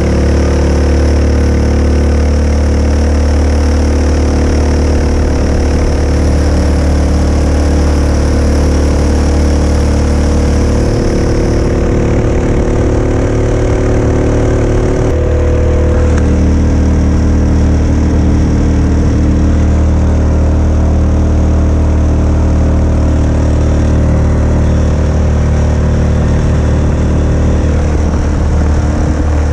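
Mokai motorized kayak's single-cylinder engine running steadily through a prototype ES-kape 2.0 muffler, with its note shifting slightly about halfway through.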